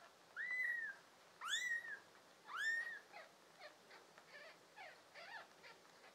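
Newborn kittens mewing. Three loud, high mews come in the first three seconds, each rising and then holding its pitch, followed by a string of softer, shorter mews.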